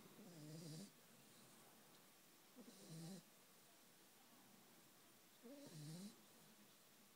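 A dog snoring in its sleep: three snores, each under a second long and about two and a half seconds apart, a low rattling rasp with a breathy hiss.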